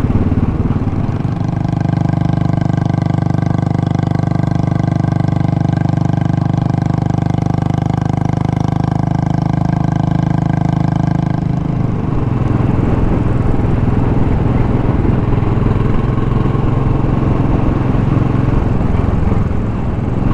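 Royal Enfield Classic single-cylinder motorcycle engine running steadily at a constant cruising speed, heard from the bike. About twelve seconds in the sound changes abruptly to a different, equally steady engine note.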